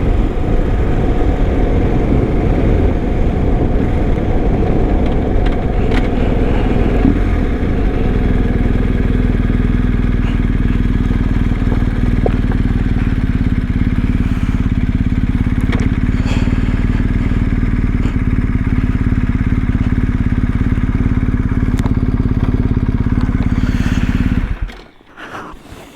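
BMW R1250 boxer-twin motorcycle engine pulling up at low speed, then idling steadily from about eight seconds in. It is switched off near the end, and the sound cuts off suddenly.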